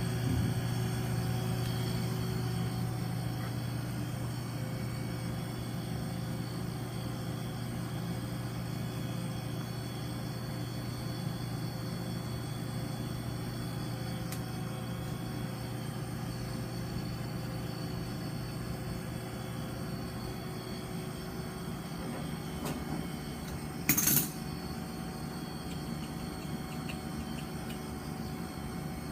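Refrigeration unit running with a steady low hum. One brief, sharp burst of noise stands out near the end.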